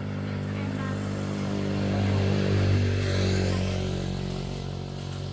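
A motorbike engine running close by, swelling to its loudest about two and a half to three seconds in, then easing off.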